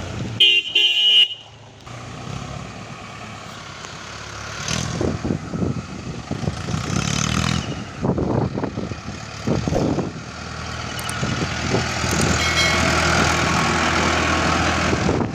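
A vehicle horn sounds twice in quick succession about half a second in. Then a Mahindra Arjun Ultra-1 555 DI tractor's diesel engine runs, growing louder as the tractor approaches and passes close by near the end.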